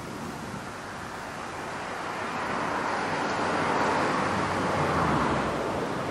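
A vehicle passing by: a broad rushing noise that swells to its loudest about four to five seconds in, then begins to fade.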